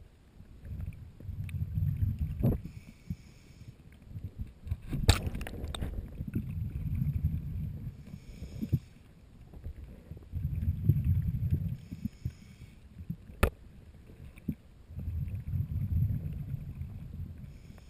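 Scuba diver breathing through a regulator underwater, heard through the camera housing: a short hiss on each inhale, then a rumble of exhaled bubbles, about four breaths in a steady rhythm. Three sharp knocks come through as well, the loudest about five seconds in.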